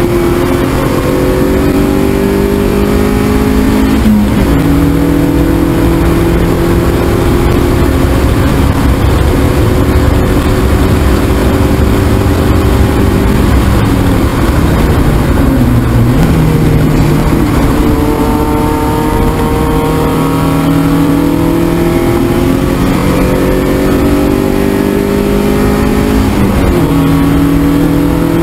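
Spec Miata's 1.6-litre four-cylinder engine heard from inside the cockpit under hard track driving. The revs climb steadily, drop suddenly at an upshift about four seconds in, fall away and pick up again around the middle as the car brakes and downshifts for a corner, then climb to another sudden drop near the end, over constant road and tyre noise.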